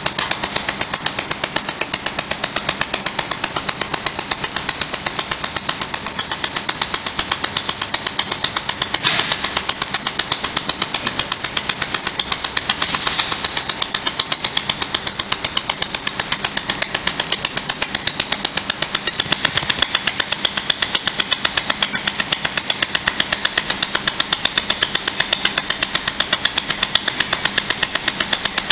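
Pulsed laser welding machine firing an even, rapid train of laser pulses, each a sharp snap, several a second over a steady hiss. Twice in the middle there is a brief louder hiss.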